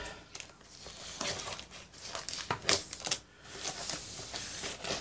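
Black plastic mailer bag wrapped in packing tape crinkling and rustling in irregular crackles as hands grip it and pull at its taped wrapping.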